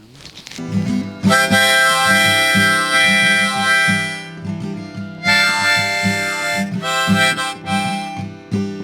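Harmonica played in long held chords, a country tune, starting about a second in with a short break near the middle, over a rhythmic strummed acoustic guitar.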